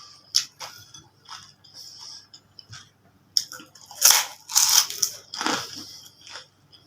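Close-miked eating of fuchka (pani puri): crisp hollow puri shells cracking between the teeth and being chewed. A few small crackles, then a run of loud crunches about halfway through.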